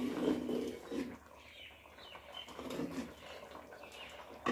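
Low animal calls, twice, with birds chirping in the background. A single sharp clink at the very end, likely the metal ladle against the aluminium pot.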